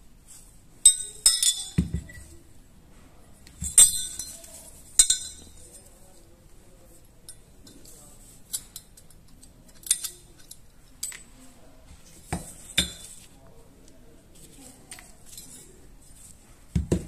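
Sharp metallic clicks and clinks of a steel punch and small parts against the metal frame of a Jericho 941 pistol as it is being stripped. Several strikes come close together in the first couple of seconds and again around four and five seconds in, with quieter ticks and a few more clinks later.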